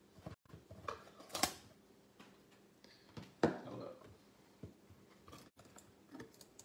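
Hands handling a cardboard trading-card box: scattered light taps, clicks and rustles, the loudest about three and a half seconds in.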